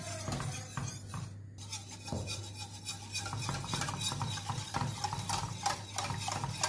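Metal balloon whisk stirring a thin milk, flour and sugar mixture in a stainless steel pot, a quick, continuous run of light clinks and scrapes against the pot's sides and base, kept going so the mixture doesn't catch as it heats. A steady low hum runs underneath.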